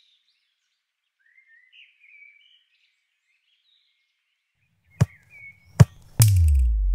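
Faint bird chirps, then two sharp clicks, then a sudden loud whoosh with a deep boom falling in pitch: an edited film transition sound effect.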